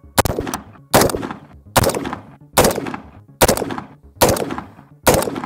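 AR-15 rifle in 5.56 firing a steady string of seven semi-automatic shots, one roughly every eight-tenths of a second, each shot followed by a short echoing tail.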